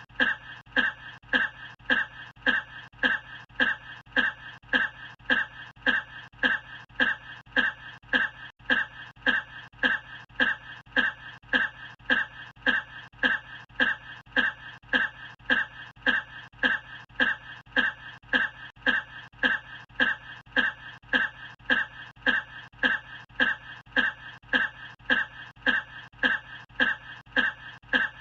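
A single short cough looped over and over, identical each time, about three coughs every two seconds, over a steady low hum.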